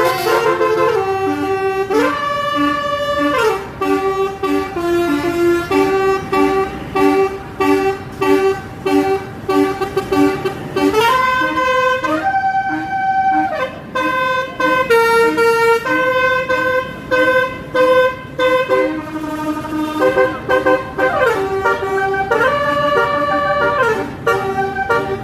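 Bus telolet horn (a basuri multi-tone horn) playing a tune. Held notes slide up and down in pitch between steps, alternating with runs of quick, short repeated toots.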